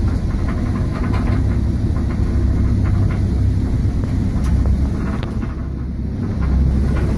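Storm wind buffeting a boat, heard from inside its enclosed cockpit: a loud, heavy low rumble with scattered short knocks.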